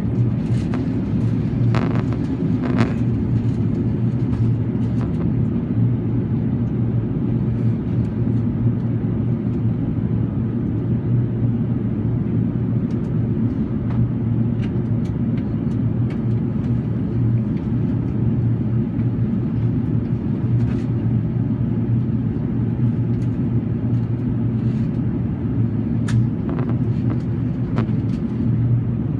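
Steady low rumble of an Airbus A380's passenger cabin, heard from the upper deck: engine and airflow noise. A few faint clicks sound near the start and again near the end.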